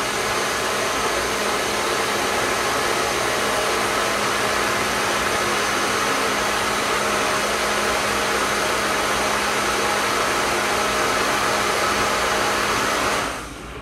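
Countertop blender running on high, puréeing a thick potato-and-carrot cheese sauce: a steady motor whir with a low hum under it, which winds down about 13 seconds in.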